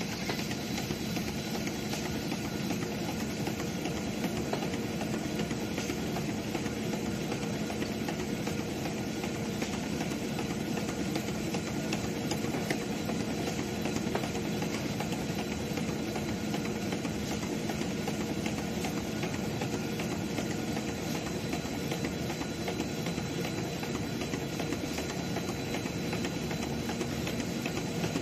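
Rolam LC Series automatic folder gluer running at speed, its chain conveyors carrying cardboard box blanks through the machine. The noise is a steady, dense mechanical rattle with a constant low hum and a faint high whine.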